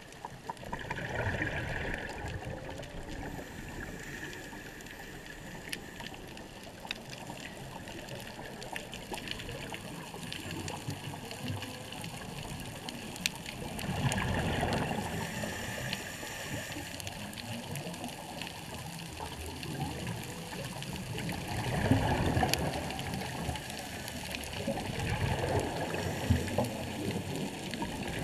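Underwater sound on a reef: a steady watery wash full of sharp crackling clicks, with louder bubbling surges about 14 and 22 seconds in. Faint humpback whale song can be heard in the background.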